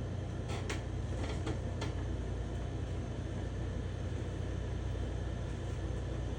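Steady low background hum, with about five light clicks or taps in the first two seconds.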